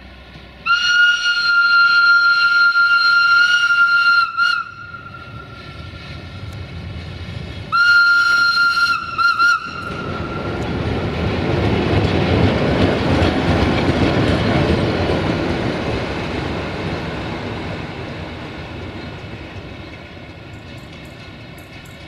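Class 060-DA (LDE2100) diesel-electric locomotive sounding its high-pitched whistle-horn: one long blast of about four seconds, then a shorter blast broken into three quick toots. Its Sulzer diesel engine and wheels then grow loud as the locomotive runs past, and fade away.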